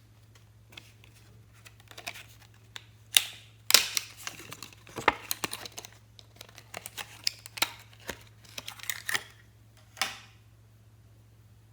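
Slime being squished and stretched by hand: irregular sharp pops and crackles, densest in the middle stretch, with the loudest pops a few seconds in.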